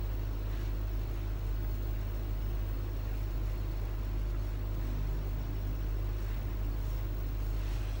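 Steady low background hum that holds unchanged throughout, with no distinct sounds from the brushing.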